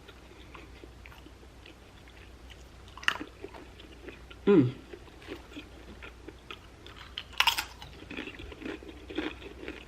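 Close-miked chewing and biting into food, with a sharp, crunchy bite about seven and a half seconds in and busy chewing after it.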